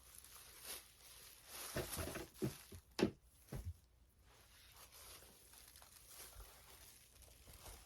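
Small plastic fidget toys being handled and sorted: rustling with a handful of light knocks and clicks about two to four seconds in, the sharpest near three seconds.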